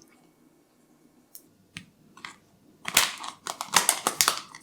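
Plastic takeaway food containers and their packaging being handled: a few separate clicks, then a run of crinkling and rustling in the second half.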